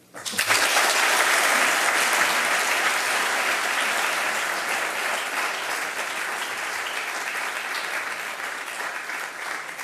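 A large audience applauding, breaking out suddenly at the start and slowly easing off.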